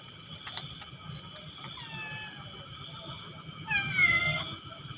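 A cat meowing twice, two drawn-out, falling calls, over a steady high-pitched background drone.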